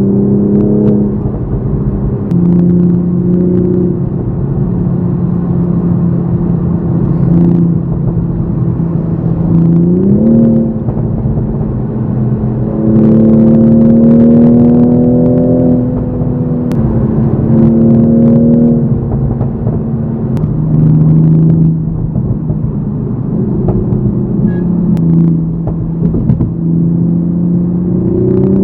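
Toyota GR Supra MK5's 3.0-litre turbocharged B58 straight-six running under way in sport mode, heard from the cabin. Its note holds, then steps up and down as the revs change, with a clear rise about ten seconds in. A few sharp exhaust pops crack over the engine note.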